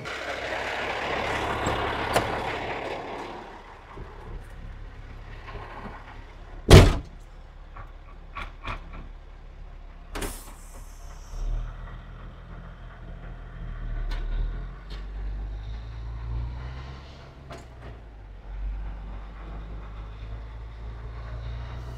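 Truck engine running low and steady, starting a little before the middle, after a hiss that fades over the first few seconds. A loud sharp bang comes about seven seconds in, with a smaller knock about three seconds later.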